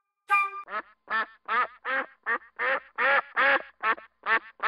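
A duck quacking over and over, about a dozen quacks in quick succession, some in pairs. Just before the quacking there is a single short ringing tone.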